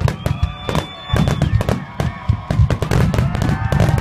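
Aerial fireworks barrage: many shells bursting in quick succession, a dense run of bangs and crackling with a deep rumble beneath, and thin whistling tones drawn out over them.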